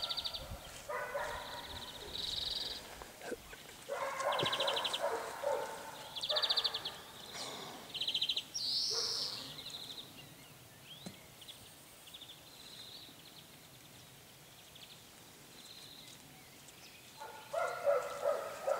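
Songbirds singing short, rapid trills several times in the first half, with other brief sounds mixed in, then a quieter stretch.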